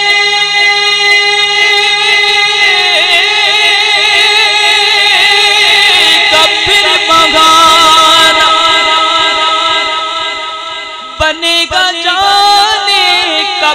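A man singing a naat into a microphone without words. He holds a long steady note, then moves into a wavering, ornamented melody. Near the end the voice drops away briefly and comes back in short broken phrases.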